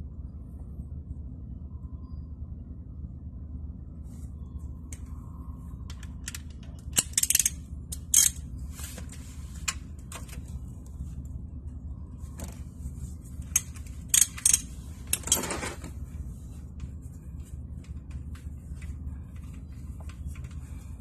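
Metal socket and ratchet clinking and clicking on a car's oil-pan drain plug as it is loosened for an oil change, in short clusters a third of the way in and again past the middle, over a steady low hum.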